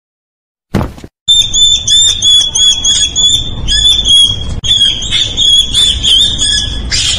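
A small rodent caught by a cat gives high-pitched distress squeals, almost unbroken and wavering in pitch, over a low rumbling noise.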